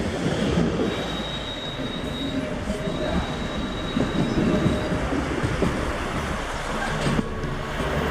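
Bernese Oberland Railway train running slowly over the rails, heard from on board, with steady rumble and clatter. A thin, high wheel squeal sounds for a few seconds, starting about a second in.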